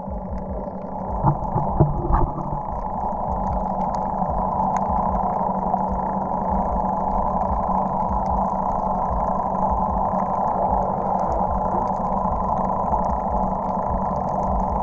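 A boat engine running steadily, heard underwater: a constant drone with a low hum, and a few knocks one to two seconds in.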